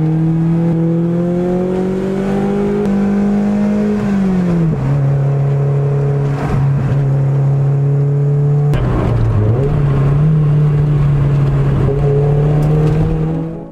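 Lotus Elise S3's 1.6-litre Toyota four-cylinder with a sports exhaust, heard inside the cabin, pulling up through the revs. The pitch drops sharply at a gear change about four seconds in, holds steady, dips and recovers about nine seconds in, then climbs again.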